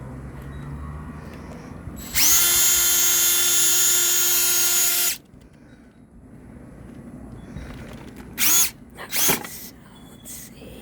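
Power drill boring through a cabbage: its motor whine comes up about two seconds in, holds steady at full speed for about three seconds and cuts off suddenly. Two brief loud bursts follow near the end.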